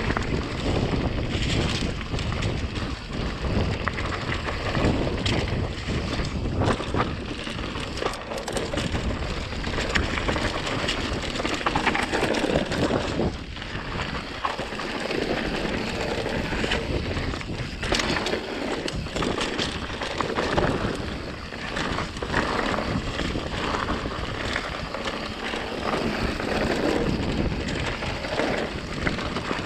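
Wind buffeting an action camera's microphone as a mountain bike runs fast down a dry dirt trail, its tyres rolling over dirt and dead leaves, with frequent clatters and knocks from the bike over bumps.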